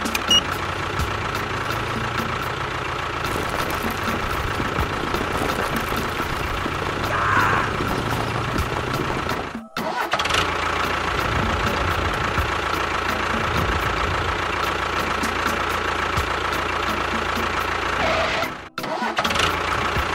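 Small DC motor of a DIY model water pump running with a steady whine. It cuts out briefly twice.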